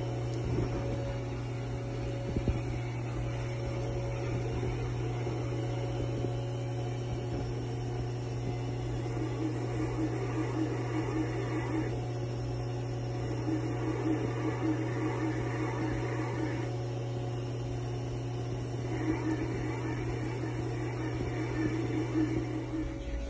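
Electric bench sharpening wheel running with a steady motor hum. A karambit blade is pressed against the wheel in several passes of a few seconds each, adding a rasping grinding sound over the hum.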